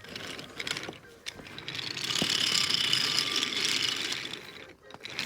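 Wooden toy trains being run along wooden track. There are a few clicks at first, then a louder, steady mechanical rattle from about two seconds in that fades near the end.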